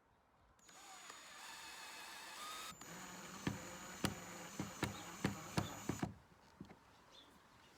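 Hardware being fitted onto a wooden barn door with tools: a low hiss, then a quick run of about a dozen sharp, irregular knocks and clicks over some three seconds.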